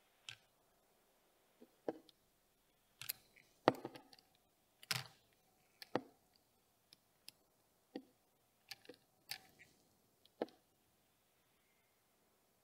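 Sparse, irregular light clicks and taps of small tools on an RC touring car chassis: a hex driver turning an anti-roll bar ball stud and a digital caliper set against the front suspension.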